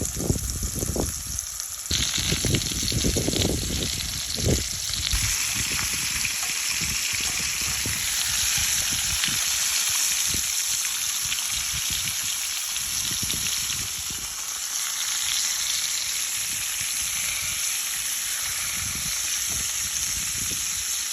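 Steaks sizzling in a cast-iron pan over white-hot charcoal: a steady, dense hiss. There are low rumbling bumps in the first few seconds.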